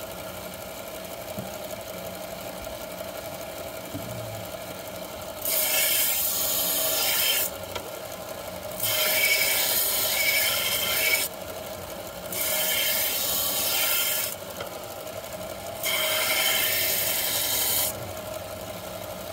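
Belt grinder's electric motor running steadily, with four passes of a serrated knife blade against the moving abrasive belt. Each pass is a harsh grinding hiss about two seconds long, the first starting about five seconds in.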